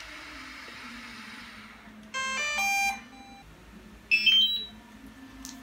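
DJI Mavic 2 Pro drone and remote controller powering on: an electronic start-up chime of quick stepped tones about two seconds in, then a short burst of higher beeps about two seconds later as the controller connects.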